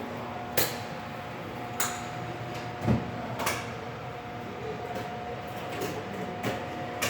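Scattered sharp clicks and clinks of hand tools and parts being handled, with one duller thump about three seconds in, over a steady faint hum.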